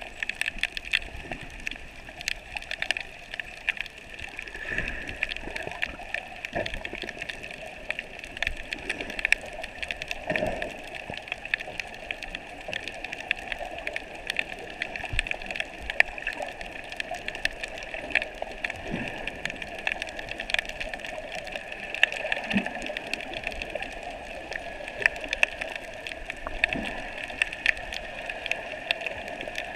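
Underwater sea ambience heard through an action camera's waterproof housing: a steady muffled hiss with constant crackling clicks, and a few short low sounds now and then.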